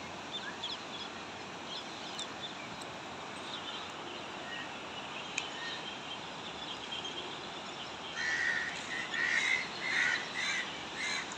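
Steady rush of fast-flowing floodwater. About eight seconds in, a bird calls about six times in quick succession.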